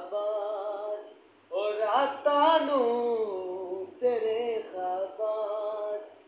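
A man singing unaccompanied in long, drawn-out phrases, with short pauses between them.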